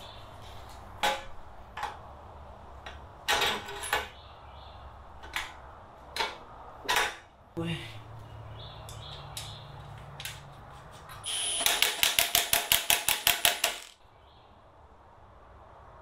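Metal parts knocking and clinking as a pocket-bike front fork is handled and fitted into the frame's head tube. Scattered single knocks, then a quick run of about ten sharp clicks near the end.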